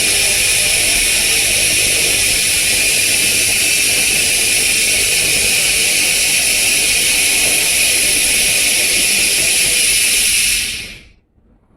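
Handheld fiber laser cleaning head ablating a metal surface, giving a loud, steady high-pitched hiss that stops suddenly near the end as the trigger is released.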